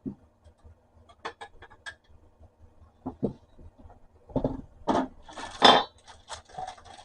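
Metal parts of an antique manual typewriter clicking and clinking as its mechanism is handled. A few quick clicks come first, then a louder cluster of clatter and rattle about two-thirds of the way through.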